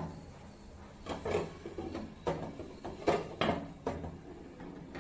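A wooden spatula scraping and knocking in a nonstick kadai as diced bitter gourd is stirred, then a glass lid clinking onto the pan near the end, a few separate short knocks and scrapes in all.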